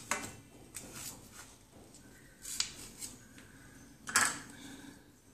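Kitchen knife cutting through a bread sandwich and scraping on a stainless steel plate, with a few clicks of metal on metal; the loudest is a sharp clink about four seconds in that rings briefly.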